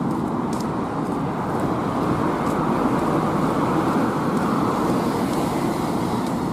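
Road traffic on the bridge's carriageway: a steady hum of car engines and tyres on the road surface, swelling slightly midway as vehicles pass.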